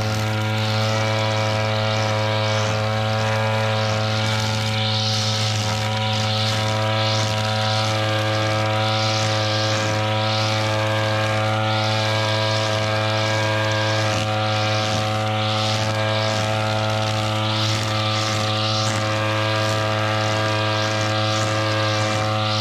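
Gasoline brush cutter (grass cutter) engine running steadily at high speed, a constant buzzing note with a rhythmic swish about once a second.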